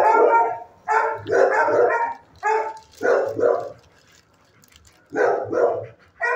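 Dog barking in repeated runs of barks, with a pause of about a second near the middle.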